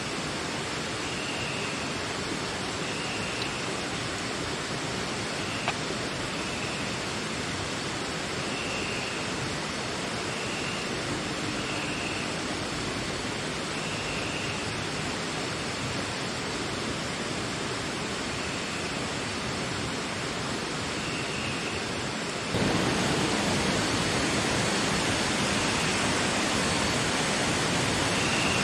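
A river flowing over rocks gives a steady rush of water, with a faint high chirp repeating every second or so. About 22 seconds in the rush suddenly gets louder and stays there.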